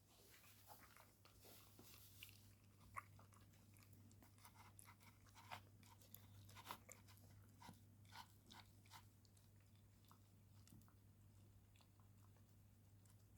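A dog crunching and chewing a treat: faint, irregular crunches, thickest in the first nine seconds and thinning out after.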